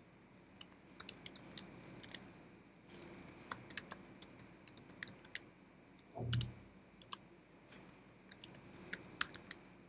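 Computer keyboard keys typed in irregular runs of quiet clicks with short pauses, as an email address and password are entered. A brief low hum-like voice sound comes about six seconds in.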